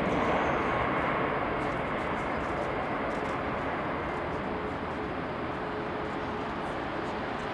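Jet engines of a Boeing 747-400 freighter on landing approach, a steady rush of jet noise that slowly fades as the aircraft passes and flares over the runway.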